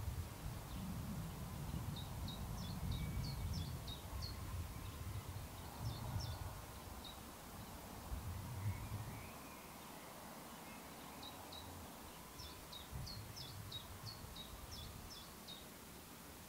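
Songbird singing from the trees: short high chirping phrases in three bouts, over a low rumbling background that fades about halfway through.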